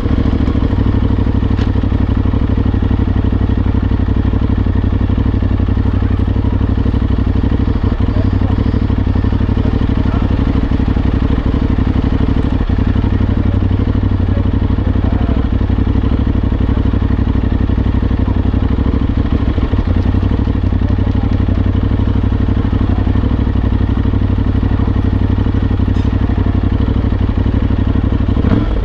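Aprilia Tuareg 660's 659 cc parallel-twin engine running steadily at low road speed, with a brief rise in revs at the very end.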